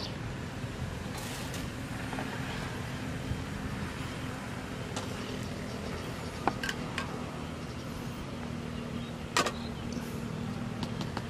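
A few sharp clicks and clinks of cooking utensils, the loudest about nine seconds in, over a steady low rumble and hum.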